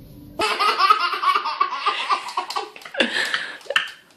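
A toddler laughing hard, a quick run of repeated belly-laugh peals. It starts suddenly about half a second in and breaks off near the end.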